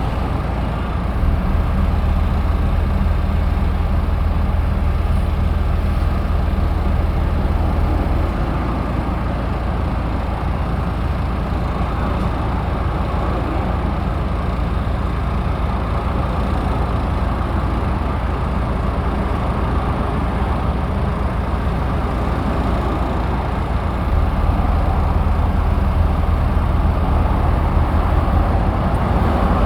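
A heavy engine running steadily. Its low hum grows louder for several seconds near the start and again near the end.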